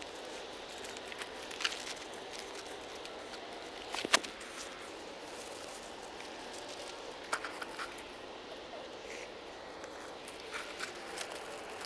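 Scattered crunches and clicks of crushed gravel mulch under feet and gloved hands as someone moves and picks up debris among the stones. A sharp click about four seconds in is the loudest.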